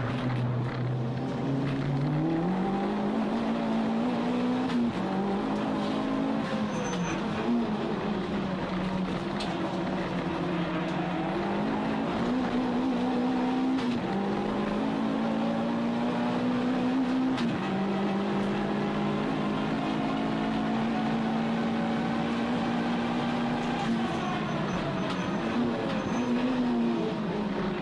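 Toyota Starlet Glanza (EP91) 1.3-litre four-cylinder engine under hard driving, heard from inside the cabin. The revs climb and fall again and again with gear changes and lifts, with a long stretch at nearly steady revs in the middle.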